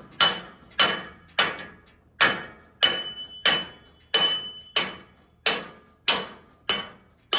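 A big hammer striking a brass drift about a dozen times at an even pace, each blow ringing metallic, driving the pivot pin out of a scissor lift's hydraulic cylinder as the pin comes loose.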